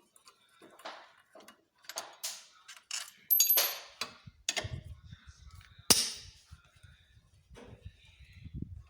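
Hand tools and steel bolts clanking and clinking against metal as the 8 mm bolts of a scooter's clutch cover are taken out. There are a string of sharp knocks, the loudest about three and a half and six seconds in, one with a brief high ring.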